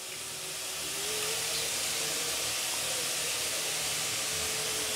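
Ground tomato-and-spice masala paste sizzling steadily in hot oil in a metal kadai, a little louder about a second in.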